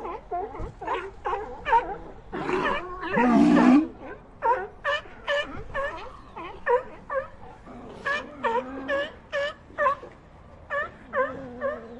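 A colony of sea lions barking: many short barks from several animals, overlapping and repeating. A louder, longer call stands out about three seconds in.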